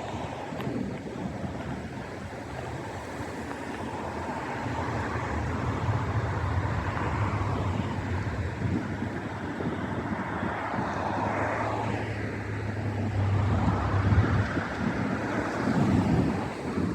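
Strong wind gusting over the microphone, with a rushing noise that swells and fades, and low buffeting near the end. A steady low engine-like hum joins about four seconds in and stops about ten seconds later.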